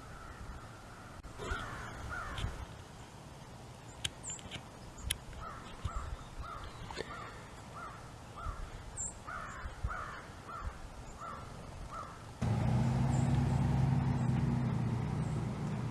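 Crows cawing, short calls repeated in quick series of about two a second. A steady low hum starts near the end and becomes the loudest sound.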